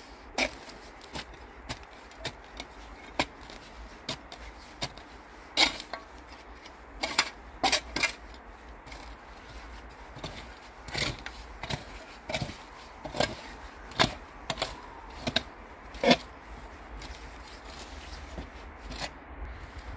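A small metal hand trowel digging and scraping into soil: irregular short scrapes and knocks, one or two a second.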